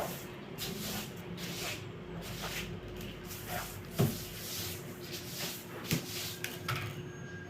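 Household dusting: a string of short brushing or wiping strokes, with two sharp knocks about four and six seconds in.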